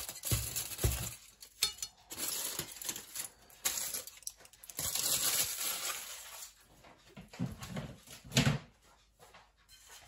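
Aluminium foil rustling and crinkling as it is handled, in a few stretches, with dull knocks of things set down on the worktop near the start and again near the end.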